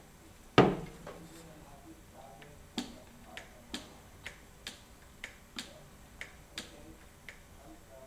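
One-hand grease gun being handled: a single loud metal clack about half a second in, then a run of light clicks, about two a second, from its pistol-grip lever being worked.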